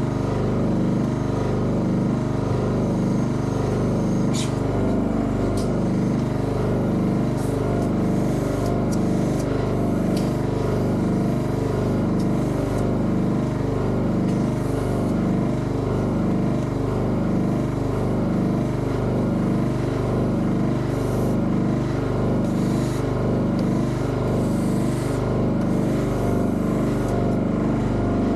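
A machine running steadily with a low hum and a regular pulsing beat, about one and a half beats a second. A few light clicks sound over it.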